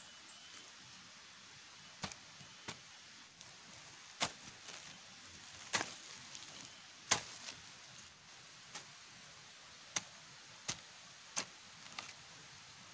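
Steady hiss of rain with a dozen or so sharp knocks at irregular intervals, the loudest about seven seconds in.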